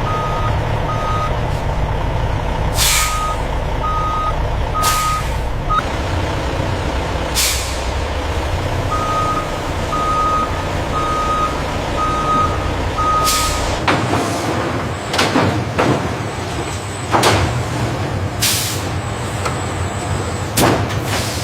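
Truck diesel engine running with a reversing alarm beeping about once a second, and short air-brake hisses. The beeping stops a little over halfway through, and the hisses come more often after that.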